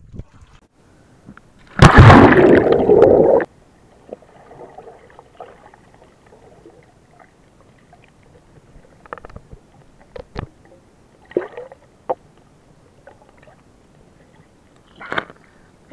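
A loud rush of water and bubbles for about a second and a half, some two seconds in. Then faint, muffled water sound picked up underwater, with scattered small clicks and knocks.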